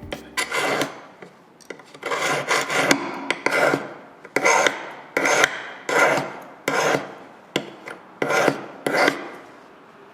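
Hand file rasping on metal in repeated, evenly paced strokes, readying a jewelry piece for soldering. The strokes stop shortly before the end.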